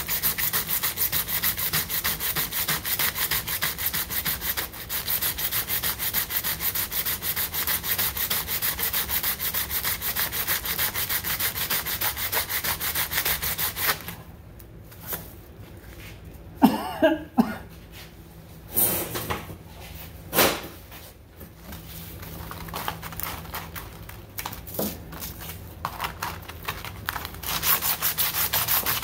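A chromatic harmonica part hand-sanded on a sheet of 60-grit sandpaper: fast, steady back-and-forth sanding strokes. About halfway the strokes stop for several seconds, with a few knocks as the piece and paper are handled, then resume, soft at first and louder near the end.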